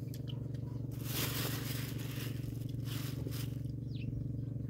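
Crinkling and scraping handling noises, loudest for about a second starting a second in, over a steady low engine-like hum.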